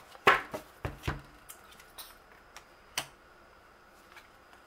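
A deck of tarot cards being handled and a card drawn and laid on a wooden tabletop: scattered sharp card snaps and taps, the loudest just after the start, thinning out after about three seconds.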